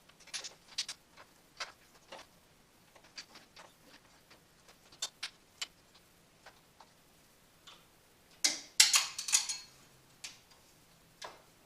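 Scattered light clicks and taps of hands handling motorcycle parts while routing a brake line, with a louder burst of clattering about eight and a half seconds in.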